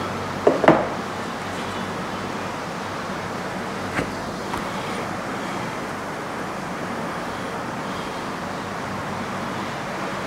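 Steady whir of an electric room fan, with two short knocks about half a second in and a lighter click about four seconds in.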